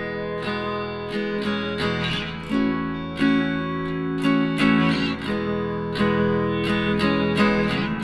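Background music: an acoustic guitar strumming chords in a steady rhythm.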